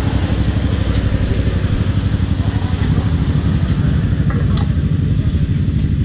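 Motorcycle engine idling with a steady low throb, and a few light clicks near the middle.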